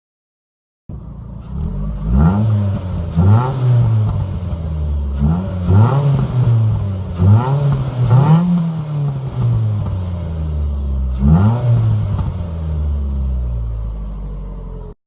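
Ford Focus ST170's 2.0-litre four-cylinder engine and exhaust blipped from idle in a series of quick revs, each rising and falling back to idle. The engine settles to a steady idle for the last few seconds.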